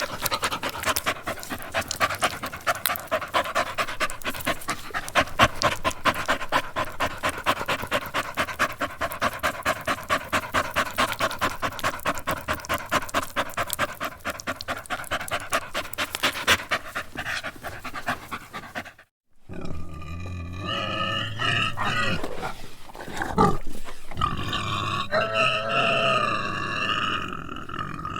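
An animal panting fast and rhythmically for about nineteen seconds, then, after a brief break, an animal squealing in high, wavering cries.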